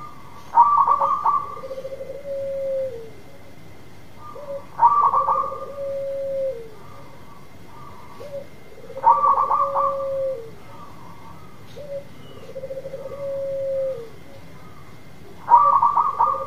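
Local-strain zebra dove (perkutut) cooing: four repeated phrases about four seconds apart, each a quick stuttering run of higher notes followed by one long, lower coo that drops at the end.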